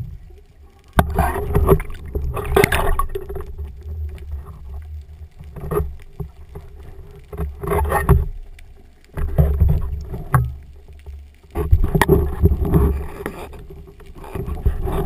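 Water rushing and sloshing around a camera in the sea, coming in repeated surges every second or two over a faint steady hum.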